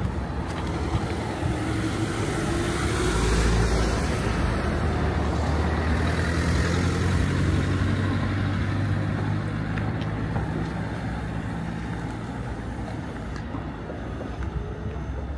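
An engine running with a steady low hum, loudest about three to four seconds in and then slowly fading.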